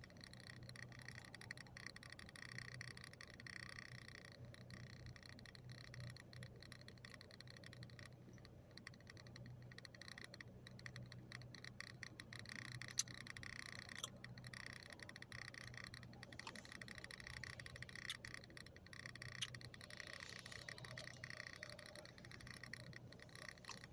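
Near silence inside a car cabin: a faint, steady hum from the air conditioning, broken by a few faint clicks.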